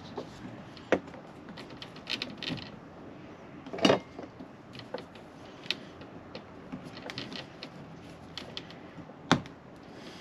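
New caravan window trim being pressed by hand into the window frame's channel: scattered small clicks, creaks and rustles, with sharper knocks about a second in, near four seconds and near the end.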